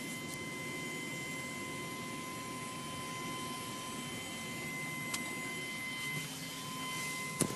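Steady electronic whine with a pure tone near 1 kHz and fainter ones above it, over a hiss, with two light clicks, one about five seconds in and one near the end. No bass is playing.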